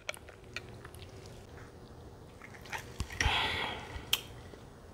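Faint sipping and swallowing of iced juice through a straw, with small clicks. About three seconds in, a soft knock and a short breathy hiss, then a sharp click.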